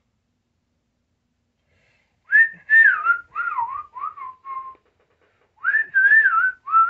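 Silence for about two seconds, then a person whistling a tune in two short phrases with a brief pause between, the notes sliding up and down.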